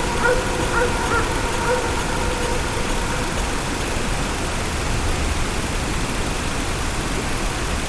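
Outdoor field recording with a steady hiss and low rumble of ambient noise. A dog barks a few times in the first two seconds, then stops.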